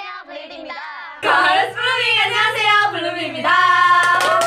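Several young women's voices chanting a group greeting together in a sing-song unison, louder from about a second in, with hand claps near the end.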